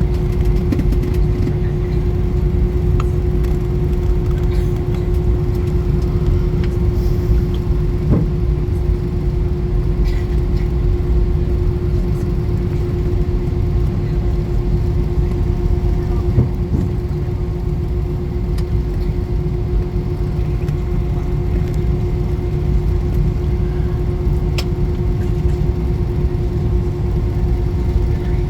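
Airliner cabin noise while taxiing: a steady low rumble from the engines and rolling gear, with an unchanging engine hum held at one pitch.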